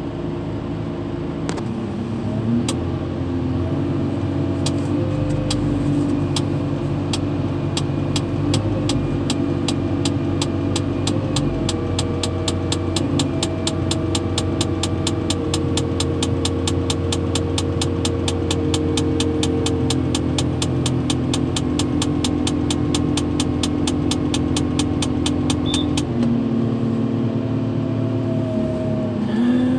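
A Terex 160-2 mobile crane's diesel engine running at raised revs, heard from inside the cab; the revs come up about two seconds in and drop back near the end. A quick, regular clicking runs over most of it and speeds up as it goes.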